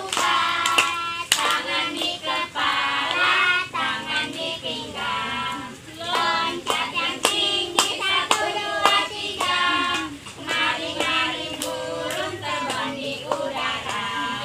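Children singing a song, with many sharp hand claps.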